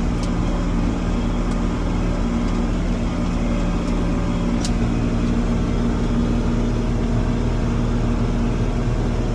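Farm tractor engine running at a steady speed under load while mowing, a constant low hum. A single short high tick about four and a half seconds in.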